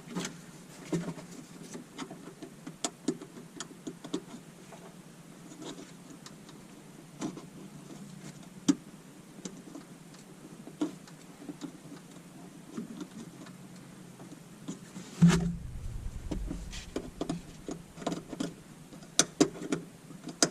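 Small irregular clicks and taps of hands and a tool working a tail light's ground wire connection back on, with one louder knock about fifteen seconds in.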